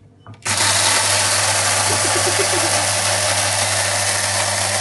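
Small electric blade grinder switched on about half a second in and running steadily, its motor humming under a loud, even whirr as it grinds cocoa nibs with sugar.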